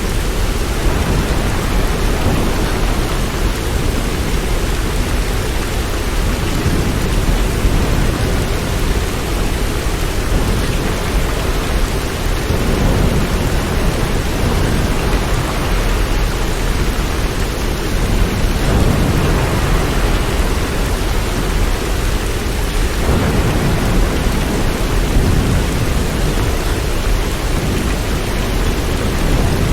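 Steady rain, a continuous even hiss, with a deep rumble underneath that swells and fades.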